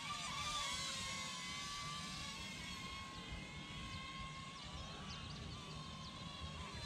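F31G toy quadcopter's motors and propellers buzzing in flight, a steady high pitch that dips and wavers as the drone maneuvers, most sharply in the first second.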